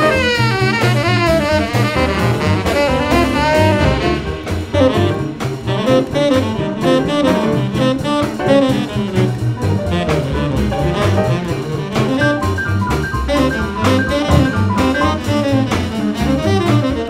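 Jazz sextet playing a swing tune: a saxophone line over double bass and drum kit keeping a steady beat.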